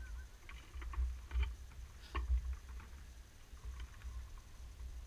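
Faint scattered clicks and ticks over an uneven low rumble, with a few louder knocks about one and a half and two seconds in.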